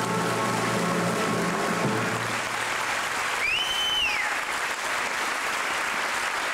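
Theatre audience applauding as the singer and orchestra hold the song's final note, which ends about two seconds in; partway through, a single whistle rises, holds and falls over the applause.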